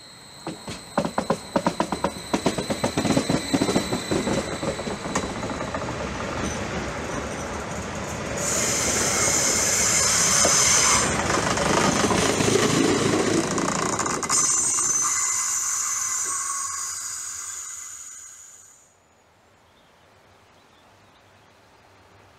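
Stadler FLIRT electric multiple unit passing close by: a quick run of wheel clacks over the track, then a loud high hiss and hum as the train goes past. It dies away to faint background about eighteen seconds in.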